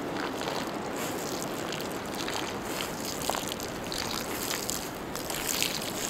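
Steady rushing noise of storm wind, with scattered faint ticks and crackles.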